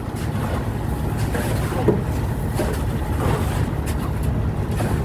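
Fishing boat engine running steadily with a continuous low rumble.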